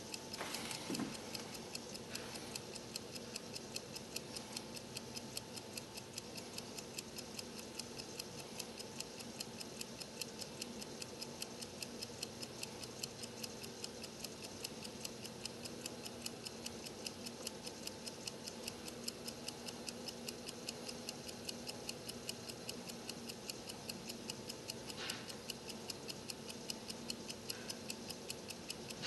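Isgus mechanical stopwatch running, its movement ticking rapidly and evenly at several ticks a second.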